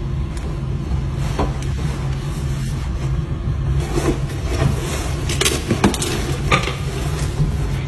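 Steady low hum of the OceanGate submersible's machinery heard inside its cabin, with scattered clicks and knocks, more of them in the second half.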